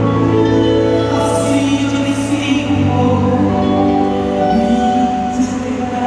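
Large youth orchestra, mainly strings, playing a slow piece in long held chords; the bass moves to a new note about halfway through.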